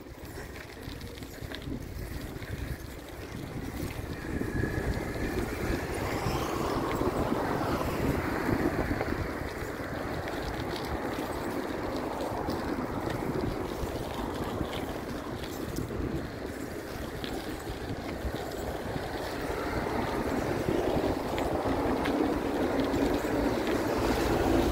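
Wind rushing over a phone's microphone as a cyclist rides along a street, with street traffic mixed in. The rush grows louder about four seconds in and stays up.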